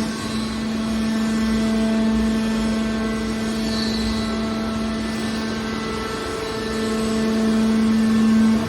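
Hydraulic scrap-metal baler running: a steady mechanical drone with a strong hum, swelling louder near the end.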